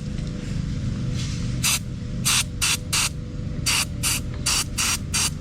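DeoxIT aerosol contact cleaner sprayed in a quick series of about ten short hissing bursts, cleaning corroded electrical connections.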